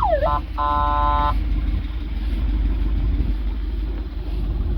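A wailing siren sweep that cuts off a moment in, followed by a single horn blast of under a second, over a steady low vehicle rumble.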